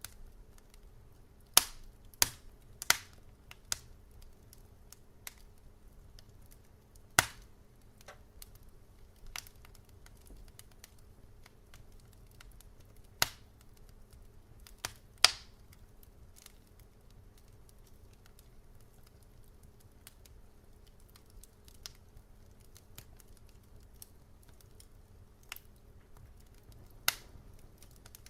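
Fireplace fire crackling: sharp, irregular pops a few seconds apart, several close together in the first three seconds, over a low steady background.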